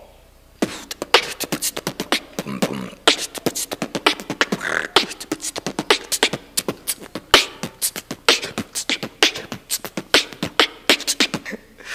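Beatboxing close on a handheld microphone: a fast, unbroken run of sharp percussive mouth sounds that starts about half a second in and stops just before the end.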